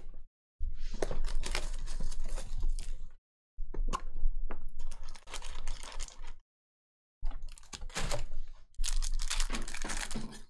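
Cardboard trading-card box being torn open and its foil card packs pulled out and ripped, with crinkling foil and tearing paper in three bursts.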